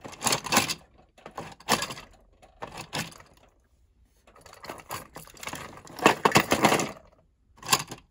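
Hard plastic toy train pieces being handled inside a toy engine shed: a run of knocks, scrapes and rattles in bursts, with a short pause about four seconds in and the loudest clatter near the end.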